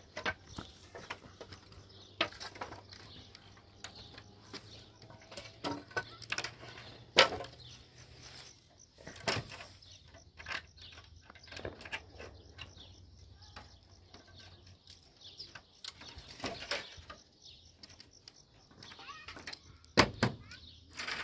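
Scattered clicks, scrapes and knocks of wire being twisted with pliers and loose weathered wooden slats shifting and rattling under hand, with a louder knock about seven seconds in and another near the end.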